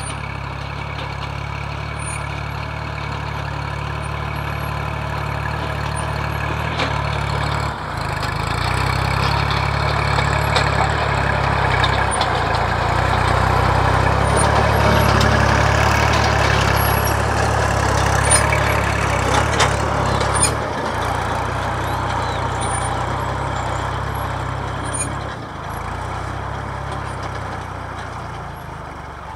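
Kubota L3608 tractor's three-cylinder diesel engine running steadily under load while it pulls a disc plough through dry clods. It grows louder as the tractor passes close, about halfway through, and eases off near the end.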